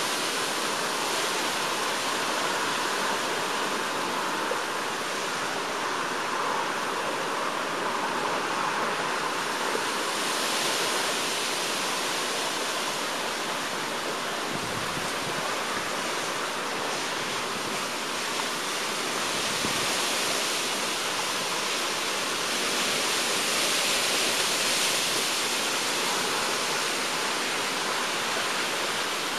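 Hurricane wind rushing steadily, a loud even hiss that swells a little about a third of the way in and again near the end.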